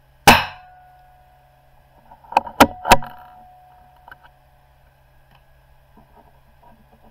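.22 rimfire benchrest rifle firing a single shot, a sharp crack that dies away quickly. About two seconds later come three quick metallic clacks as the bolt is worked.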